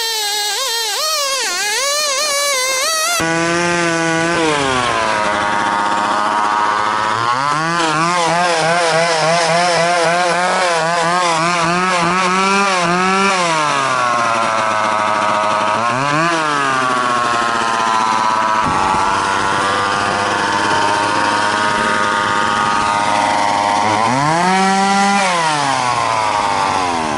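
1970s McCulloch Pro Mac 1010 two-stroke chainsaw running at full throttle while ripping a large log lengthwise, its engine pitch sagging under load and picking back up again and again. In the first three seconds the pitch warbles rapidly up and down, and near the end the saw revs up once and falls back.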